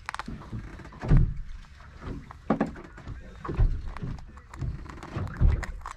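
Irregular low thumps and knocks, five or six over a few seconds, with faint mumbled speech between them.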